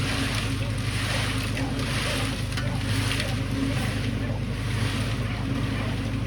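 An engine running steadily with a low hum, under a hiss that swells and fades about once a second.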